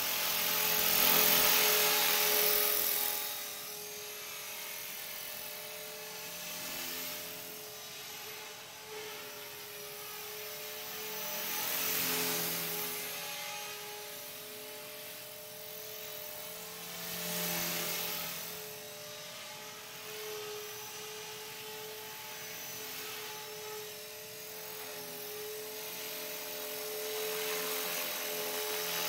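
Blade 450 electric radio-controlled helicopter in flight: the steady whine of its motor and spinning rotors, swelling louder and fading several times.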